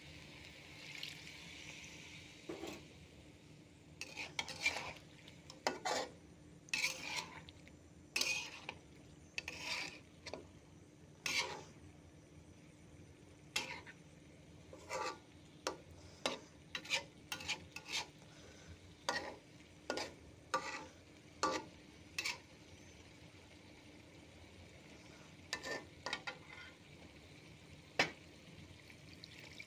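A spoon or spatula stirring and scraping around a cooking pan in a run of irregular scrapes and knocks, over a faint sizzle of frying.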